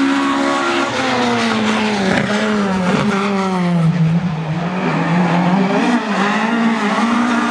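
Rally car engine under hard driving on a stage, its note sliding down over the first few seconds and then rising and dipping with the revs.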